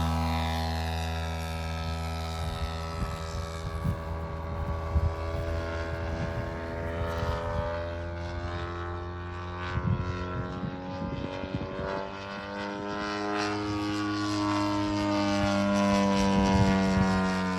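ZDZ 90cc two-stroke petrol engine of a 1/5-scale P-47 Thunderbolt model, swinging a 28x12 propeller, droning in flight. It fades and drops in pitch as it moves away, then grows louder and rises in pitch as it comes back near the end. Wind rumbles on the microphone through the first half.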